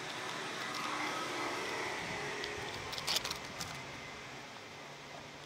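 Noise of a passing vehicle that swells and then fades, with a quick burst of sharp clicks about three seconds in.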